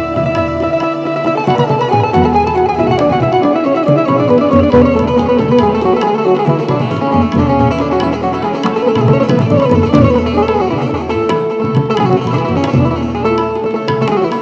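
Bulbul tarang (keyed Indian banjo) playing a fast instrumental interlude of plucked, twanging note runs, often falling in pitch, over a low pulsing accompaniment in the bass.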